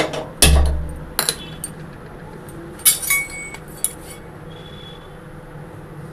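A gas stove burner being lit: a sharp click and a short low thump as the flame catches, about half a second in, the loudest sound. Then a few light metallic clicks and clinks of pans and utensils, one ringing briefly.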